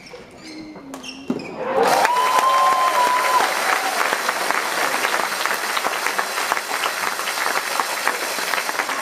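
Spectators in an arena clapping and cheering at the end of a badminton rally: quiet at first, then about two seconds in the crowd breaks into loud, steady applause, with one long shout rising over it.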